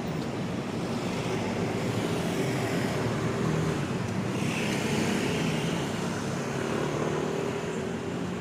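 City street traffic: motor vehicles running and passing, a steady engine hum that swells as one goes by about halfway through.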